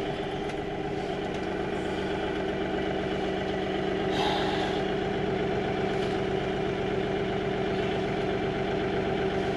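Farm tractor engine running at a steady speed, with a brief rushing noise about four seconds in.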